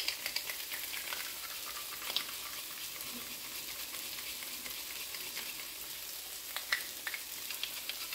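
Chicken-breast pieces sizzling steadily in a frying pan, with a few light clicks and scrapes from a small handheld grater as a garlic clove is grated over the pan.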